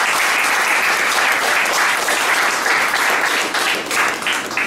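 Audience applauding, a dense steady patter of many hands clapping that fades just at the end.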